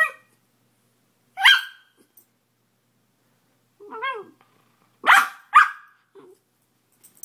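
West Highland white terrier puppy giving short, high-pitched play barks while rolling on its back: single barks spaced a couple of seconds apart, then two quick ones close together about five seconds in.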